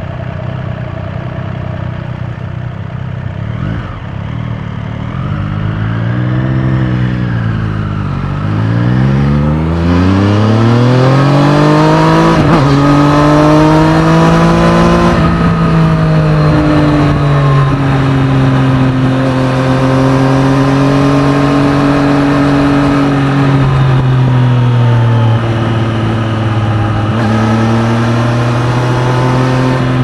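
Triumph Street Triple 765 RS inline-three engine idling for a few seconds, then pulling away from a stop: the pitch climbs and drops at each upshift, settles into a steady cruise, and climbs again near the end. Wind noise builds as speed rises.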